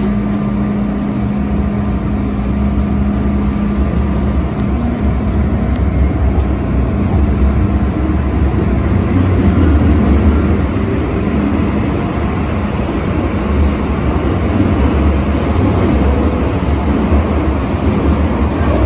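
MTR M-train electric multiple unit running, heard from inside the car: a steady rumble of wheels on rails and running gear. A faint steady hum fades out a few seconds in.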